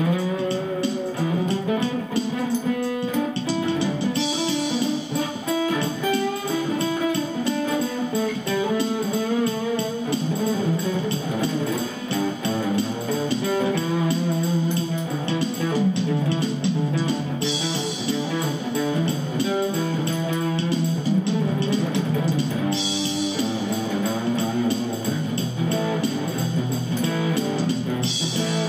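Guitar music: an acoustic guitar played through an overdrive pedal into a small ten-watt amp, picking a melody.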